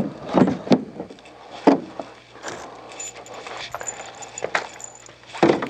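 Scattered clicks and knocks as the dehumidifier's hard plastic upper housing is set in place, with small metal bolts clinking in a hand.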